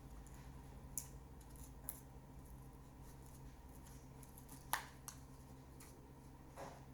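Small tools clicking and tapping against a Samsung Galaxy A21s smartphone being taken apart: four sharp clicks, the loudest a little under five seconds in, over a faint low steady hum.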